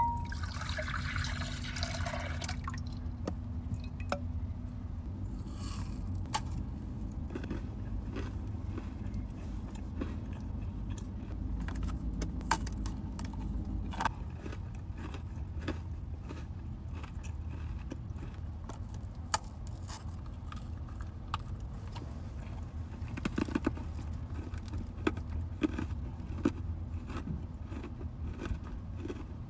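Eating and handling food close to the microphone: a rustle in the first couple of seconds, then scattered small clicks and scrapes of mouth and food sounds over a low steady hum.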